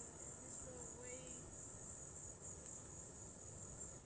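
Steady high-pitched buzzing of an insect chorus in the surrounding woods, faint and continuous.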